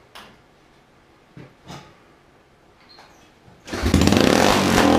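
Yamaha Tri-Moto 225DX's single-cylinder four-stroke engine, started from a jump pack, firing and running loudly from about three and a half seconds in after a few faint knocks. It has only just caught after long failing to start.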